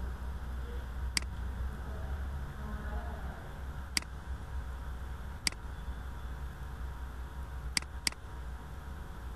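Computer mouse clicking: single clicks about a second in, at four seconds and at five and a half seconds, then a quick double click near the end, over a low steady hum.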